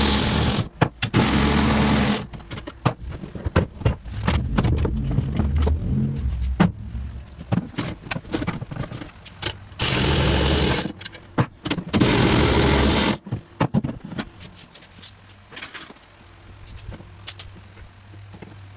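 Cordless power tool with a 14 mm socket running in short bursts of about a second, backing out the seat bolts: twice at the start and twice around the middle. Between the bursts, sharp clicks and clatter of the socket, bolts and parts being handled.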